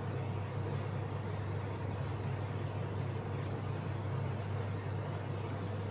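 Steady low hum with a faint even hiss and no distinct events: background room noise.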